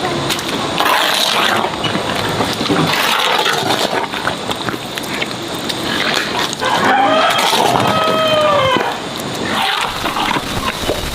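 Farm animals feeding with continuous noisy rustling and chomping, and a run of short pitched calls from one animal about seven seconds in.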